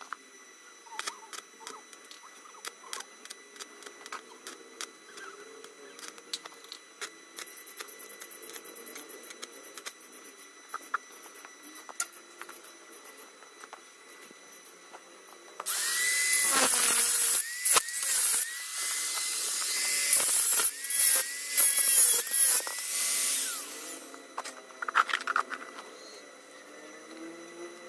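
Angle grinder working steel for about eight seconds from just past the middle, a loud hissing whine that dips in pitch as it bites and briefly stops once near the start. Before it, only faint scattered clicks and taps.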